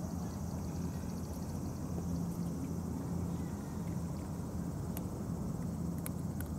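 Steady outdoor background rumble with a faint high hiss above it, and a few light clicks near the end.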